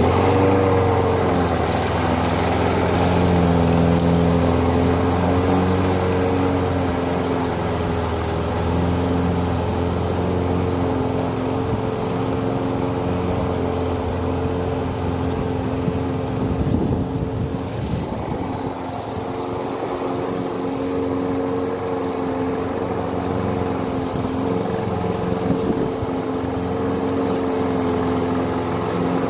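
Gas push mower's small engine running steadily at a constant speed under mowing load, getting gradually a little quieter as the mower moves away.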